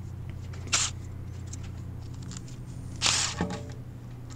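Power ratchet on a long socket extension spinning out oil pan bolts in two short bursts, about a second in and about three seconds in, over a steady low hum.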